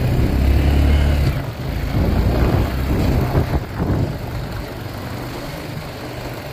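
Four-wheeler (ATV) engine running as the quad is ridden across grass. The engine drone is strong for about the first second, then eases off, and the sound gets quieter toward the end.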